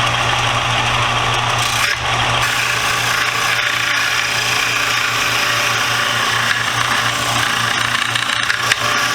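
Belt sander running with a 120-grit belt, grinding a wooden screwdriver-handle blank to shape: a steady motor hum under the rasp of wood against the abrasive belt. The fine belt is removing wood slowly.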